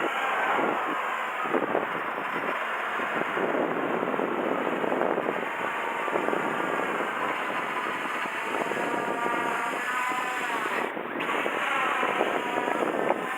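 Motors of radio-controlled aircraft flying 3D manoeuvres, their whine rising and falling in pitch, most clearly in the second half, against strong wind buffeting the microphone.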